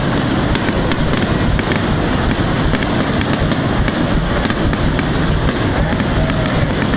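Aerial fireworks shells bursting in a rapid, dense barrage: many bangs and crackles each second merge into a continuous rumble.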